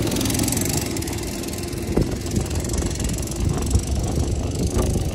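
Go-kart engines running steadily as the karts circle the track, a continuous low motor drone.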